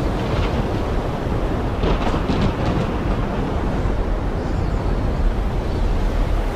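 Heavy rain falling steadily, with a deep rumble underneath and a few sharper splashes about two seconds in.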